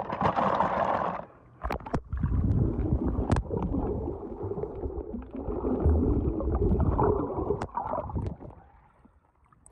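Lake water splashing as a plastic tub is dipped in, then muffled underwater sloshing and gurgling, heard from below the surface, with a few sharp knocks.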